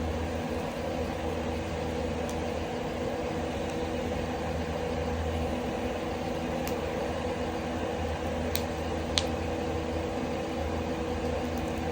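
Ceiling exhaust fan drawing smoke from a wood fire, running with a steady loud hum that drowns out the fire. A few sharp pops from the burning firewood cut through, the loudest about nine seconds in.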